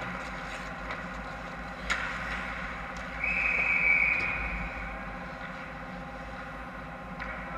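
Indoor ice rink during a hockey game, with a steady background hum. A sharp stick-on-puck click comes about two seconds in, and about three seconds in a high, drawn-out scrape of just over a second is the loudest sound.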